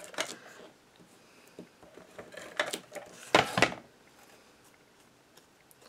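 ATG tape gun being drawn across the back of a small cardstock square, laying down double-sided adhesive, with short scraping and rustling handling sounds; the loudest knock comes about three and a half seconds in.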